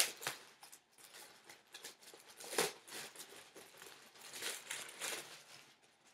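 Plastic packaging bag crinkling and rustling in irregular crackles as a folded t-shirt is handled and taken out of it, with a few louder crackles partway through and near the end.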